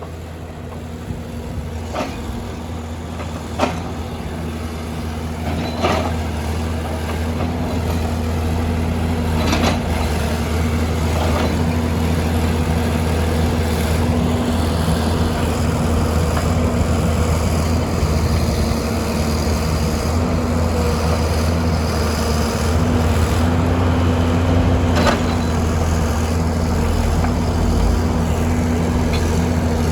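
Heavy diesel machine engine running steadily, growing louder over the first ten seconds and then holding, with about half a dozen short sharp knocks, most of them in the first half.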